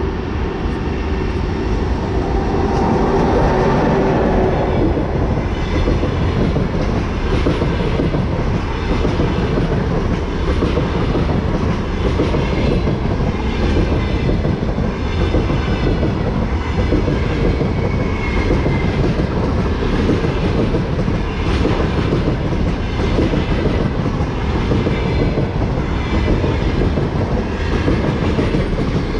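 EP20 electric locomotive hauling a passenger train passes close by, with a steady tone as it goes past in the first few seconds. Then the passenger carriages roll past with a continuous rumble and a rhythmic clickety-clack of wheels over the rail joints.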